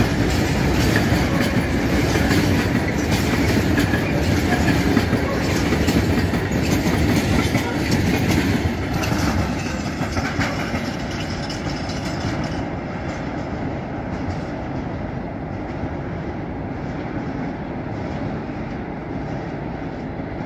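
Freight train of loaded hopper wagons rolling through, wheels clattering over rail joints with a steady clickety-clack and rumble; it fades off from about halfway as the train draws away.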